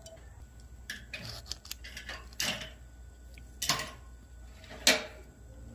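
Small metal clicks and clinks as the hardened camshaft retainer plate and its bolts are fitted by hand against a Hemi engine block. A handful of separate sharp taps, the loudest near the end.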